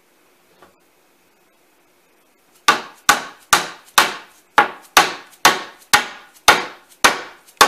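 Hammer blows on wood, a steady run of sharp strikes about two a second, starting nearly three seconds in.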